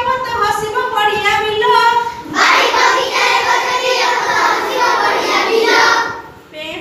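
A group of children, led by a woman, singing an Odia children's rhyme together. About two seconds in the singing turns into a denser, rougher mass of many voices, which fades shortly before the end.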